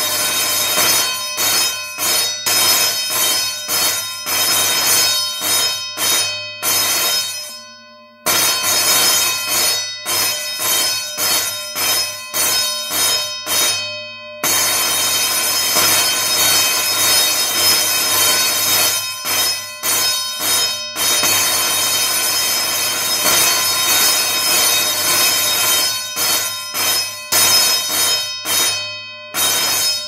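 Electric school bell ringing continuously in long peals, stopping briefly about eight seconds in, again about fourteen seconds in, and once more near the end.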